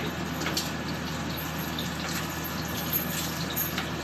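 Hot oil sizzling steadily in a frying pan on a gas stove, with small crackles and pops scattered through it.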